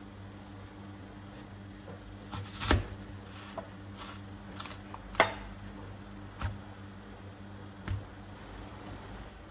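Metal tube apple corer being pushed and twisted through an apple on a plastic cutting board: a series of sharp cracks and knocks, the loudest a little under three seconds in, over a steady low hum.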